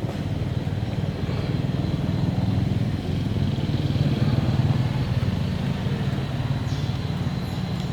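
Steady low rumble of an engine running, like a nearby motorbike.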